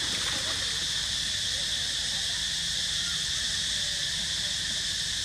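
Steady, high-pitched drone of a forest insect chorus, unchanging throughout, with faint scattered calls or voices underneath.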